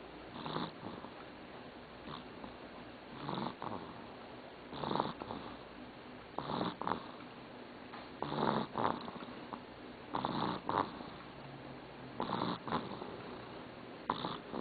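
Sleeping pet snoring in a steady rhythm, one snore about every two seconds, most of them a quick double puff.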